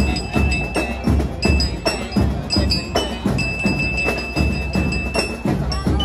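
Marching band playing: drums keep a steady beat under a melody of clear, ringing metal-bar notes from glockenspiels (bell lyres).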